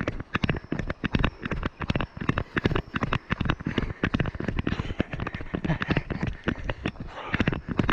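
Rapid, uneven footfalls of a person running on a rough forest trail, picked up as a quick string of knocks and clatters, several a second, by a body-mounted action camera.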